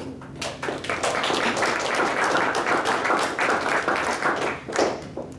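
A small audience applauding at the end of a talk, starting about half a second in and dying away near the end.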